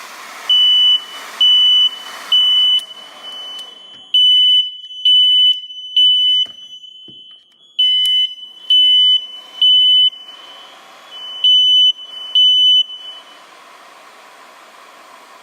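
Kidde fixed-temperature heat detector sounding its alarm: loud, high-pitched beeps in repeating groups of three (the temporal-3 fire pattern), about four rounds. The alarm has tripped because its thermistor has been heated past its 135 °F set point. A hair dryer blows underneath for the first few seconds.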